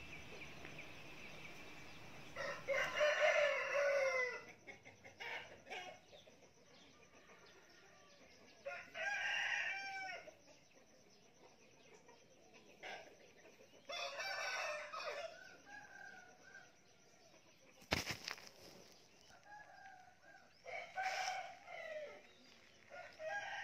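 Roosters crowing: four crows, each about one and a half seconds long and a few seconds apart, with a single sharp click between the third and fourth.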